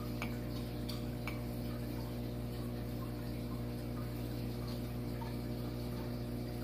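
Steady low electric hum with a few faint ticks, from running aquarium equipment.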